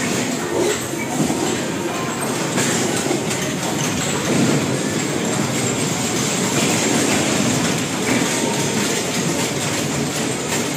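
Bumper cars driving around the rink: a steady rumbling clatter.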